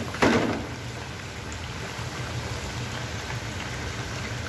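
Potato slices deep-frying in hot oil in wire fryer baskets: a steady, rain-like sizzle and bubbling, with a brief knock right at the start.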